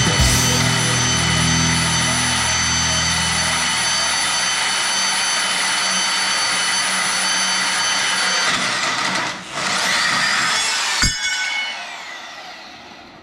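Power tool running at full speed with a steady high whine. It dips briefly about nine and a half seconds in, then is switched off about eleven seconds in and winds down, its pitch falling.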